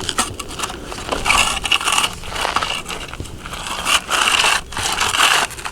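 Gravel crunching and scraping as a plastic toy digger's bucket scoops into it, in several rough bursts.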